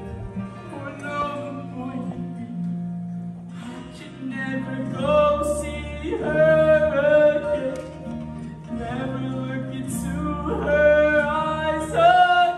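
A male singer performs a slow, dramatic musical-theatre ballad live with instrumental accompaniment. He holds long notes with vibrato that swell louder about five seconds in and again near the end.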